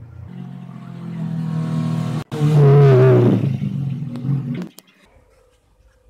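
Small 5V DC motor spinning a propeller: a loud whirring hum that rises in pitch and level, wavers briefly, and cuts off abruptly about five seconds in.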